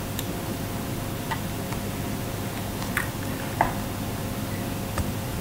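Steady background hiss with a faint hum, and a few small clicks and taps scattered through it, the loudest about three and a half seconds in.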